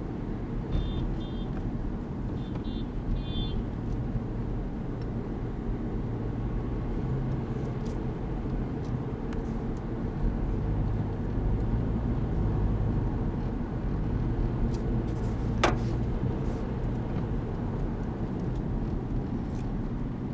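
A car driving at town speed, heard from inside the cabin: a steady low rumble of engine and road noise. A few short high chirps come in the first few seconds, and a single sharp click about three-quarters of the way through.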